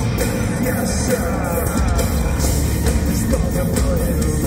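Live industrial metal band playing loud, with distorted electric guitar over a heavy drum beat, recorded from the crowd.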